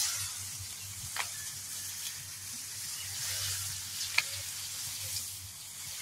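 Rustling of tall fodder-grass leaves being brushed and parted by hand, a soft steady hiss with two brief clicks about one second and four seconds in.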